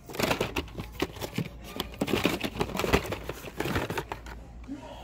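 Hands flipping through Hot Wheels cars on blister cards in a cardboard shipping case: a quick, irregular clatter of card backings and plastic bubbles rustling and knocking against each other and the box.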